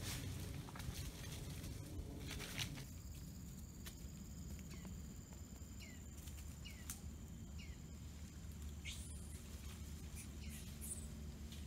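Faint forest ambience: short downward-sliding bird chirps about once a second and a couple of higher whistles, over a steady high insect whine that sets in about three seconds in, with a low rumble underneath.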